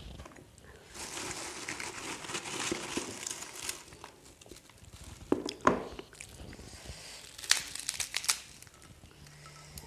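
Packaging crinkling and rustling for a few seconds, then a couple of knocks, then a quick run of sharp crunches as crisp pink crackers (kerupuk) are broken by hand over a plate of food.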